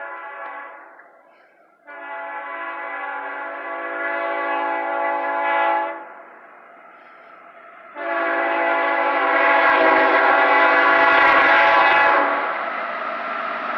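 GE ES44AH diesel locomotive's air horn sounding long blasts as the CSX intermodal train approaches: one ending just after the start, then two long blasts of about four seconds each, separated by a short gap. The train's rumble builds under the second blast, and about twelve seconds in the horn stops and the loud noise of the train passing takes over.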